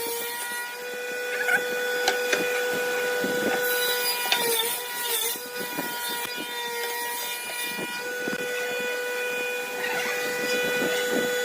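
An electric woodworking power tool running with a steady motor whine, its pitch dipping briefly about four to five seconds in as it loads up cutting wood, with scattered knocks and scraping of wood throughout.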